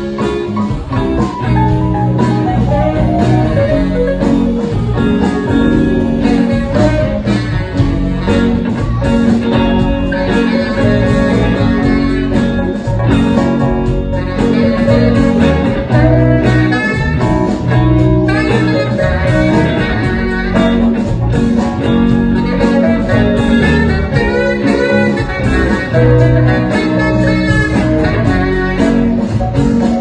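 Live blues band playing an instrumental passage: electric guitar and keyboard over a steady beat.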